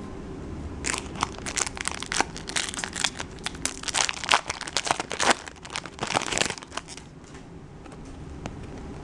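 Plastic trading-card pack wrapper being crinkled and torn open by hand: a run of quick sharp crackles that thins out after about seven seconds.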